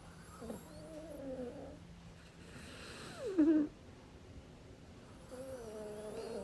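A sleeping pet snoring: three slow, pitched snoring breaths. The middle one is shorter and louder and drops in pitch at its end.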